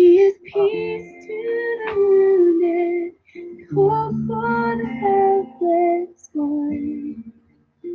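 A woman singing a slow, worship-style melody with long held notes, in phrases broken by short pauses.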